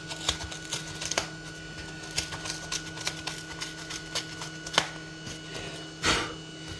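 Small irregular clicks and taps of metal tweezers picking cut-out pieces of foam from a tool shadow board, over a steady electrical hum. A brief louder rustle about six seconds in.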